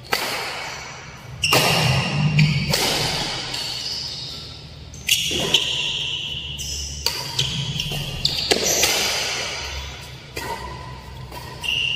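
Badminton doubles rally: sharp, echoing racket strikes on the shuttlecock, about nine of them a second or so apart, with short high shoe squeaks on the court floor between hits.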